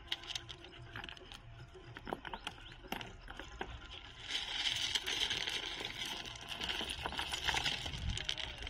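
Footsteps on loose gravel and broken stone: crunching with scattered small clicks of stones knocking together, getting louder about halfway through.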